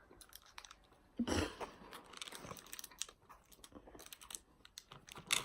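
Close-miked chewing and biting of food: scattered small mouth clicks and crunches, with louder bites about a second in and near the end.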